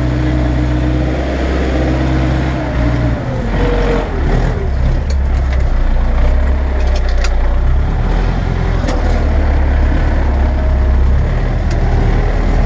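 MTZ-82 tractor's four-cylinder diesel engine running steadily under load while pulling a plough; its note shifts and drops about three seconds in, then holds, with a few sharp clicks in between.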